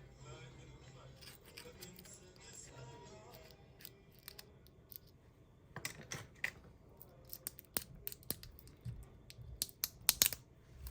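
Light, irregular clicks and taps of small repair tools against a smartphone being taken apart, in scattered clusters with the loudest near the end.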